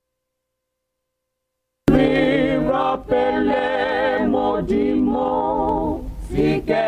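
Silence for about two seconds, then a choir starts singing abruptly, voices only, with a wavering vibrato.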